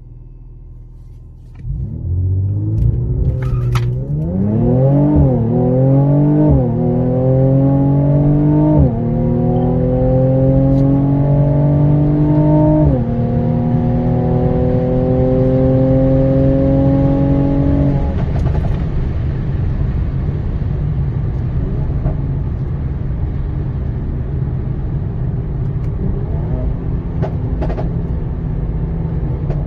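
Twin-turbo 3.0-litre V6 of a Stage 1 tuned 2019 Mercedes-AMG C43 pulling hard from a low note. Its pitch climbs and drops sharply four times through the upshifts, then holds steady before easing to a lower rumble, with a few sharp exhaust cracks.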